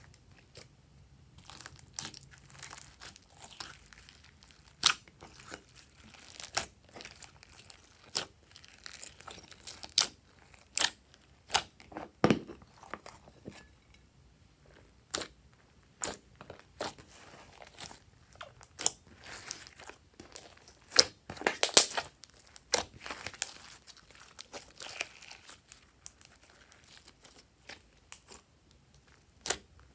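Hands squeezing and stretching slime, giving irregular sticky clicks and pops, with a quick run of pops about two-thirds of the way through.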